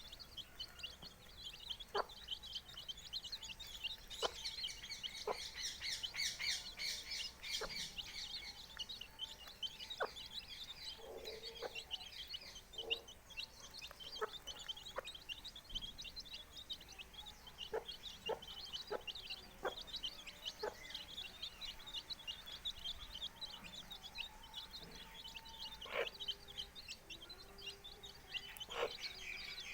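A brood of four-day-old chicks peeping continuously in high, rapid cheeps, busiest about four to eight seconds in, while the mother hen gives short, low clucks every second or two.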